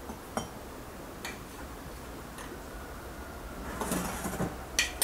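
Metal teaspoon clinking and scraping against a ceramic teapot and glass jar as loose dry tea is spooned in: a few single light clicks, then a busier run of scrapes and clinks near the end.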